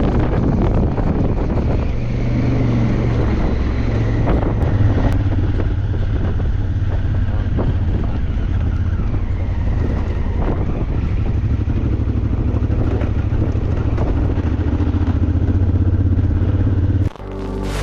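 Enduro motorcycle engine running steadily under way, its low note shifting a little as it goes. It cuts off abruptly just before the end, giving way to music.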